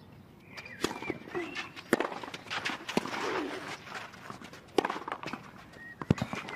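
Tennis rally on a clay court: about five sharp racket-on-ball hits, one to two seconds apart, with the players' grunts on some of the shots.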